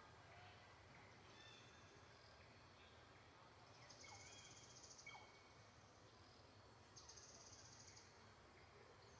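Near silence: faint outdoor background with a few soft, distant bird chirps and two short high buzzes, about four and seven seconds in.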